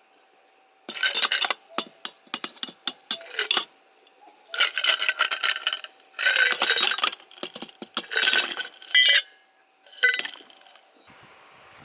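Dishes and cooking utensils clinking, clattering and scraping in several short bouts of handling, with pauses between them.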